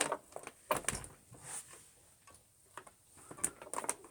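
A scattered series of light clicks and knocks as the Hoover Junior vacuum cleaner is handled with its motor off.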